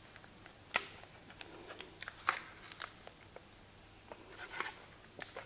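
Faint, scattered clicks and scrapes of a metal palette knife against a metal baking tin as cake batter is spread out in it, with light crinkling of the baking paper under the tin.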